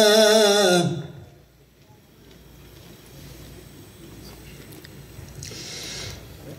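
A man's melodic Quran recitation through a microphone ends on a long held note with a wavering pitch about a second in. Then comes a pause of faint low background noise, with a brief breathy hiss near the end.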